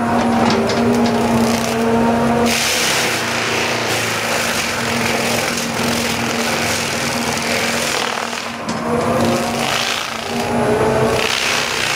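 Excavator engine and hydraulics working hard, with a steady hum and whines that rise and fall twice, over loud rasping as the machine works at a tree or stump.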